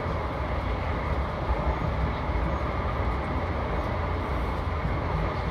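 Steady low rumble of a moving passenger train, heard from inside the coach: the wheels running over the rails.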